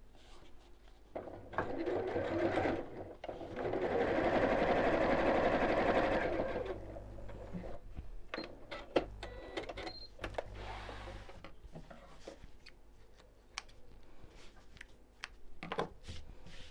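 Electric sewing machine stitching through quilted fabric and binding: a short run, then a longer steady run lasting a few seconds. After it stops come scattered clicks and rustles of the fabric being handled and pulled out from under the machine.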